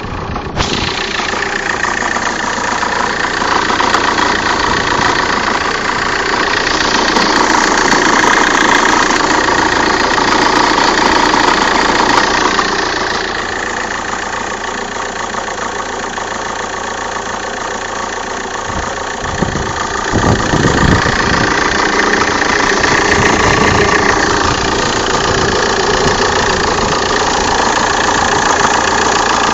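Opel Vectra C 1.9 CDTI diesel engine idling from a cold start, with a strange knocking noise and vibration that appears only when the engine is cold. The dual-mass flywheel was replaced a month earlier. A few low bumps come about twenty seconds in.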